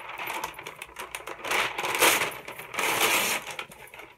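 Sheet of wax paper crinkling and rustling as it is unrolled and handled, in uneven bursts, loudest around halfway through and again about three seconds in.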